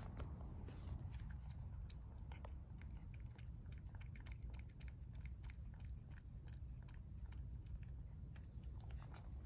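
A cat eating, chewing and crunching its food in a run of small, irregular clicks over a steady low rumble.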